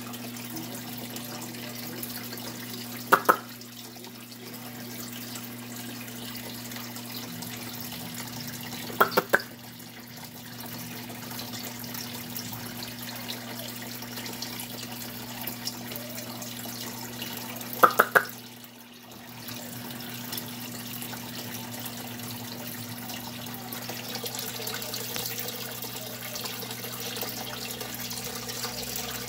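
Aquarium water running steadily, in the way of a filter outflow, over a low electrical pump hum. Three quick clusters of two or three sharp clicks stand out as the loudest sounds, at about three, nine and eighteen seconds in.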